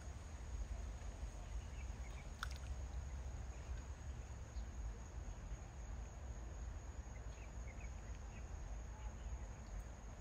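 Quiet outdoor ambience: a steady low rumble with a faint, steady high-pitched insect drone, and one sharp click about two and a half seconds in.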